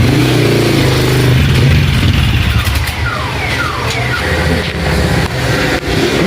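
Motorcycle engine running loudly, steady for the first two seconds and then less even. A few short falling whistle-like tones come about halfway through.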